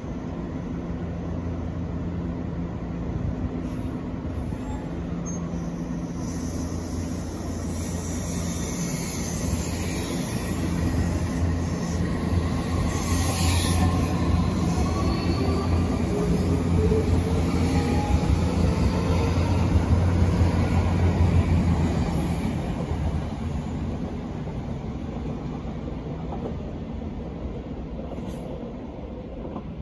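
Odakyu 8000 series electric commuter train pulling out of the station and accelerating past: its motors whine, rising in pitch as it picks up speed, over a low hum and wheel noise. It is loudest as the last cars go by, then fades as the train leaves.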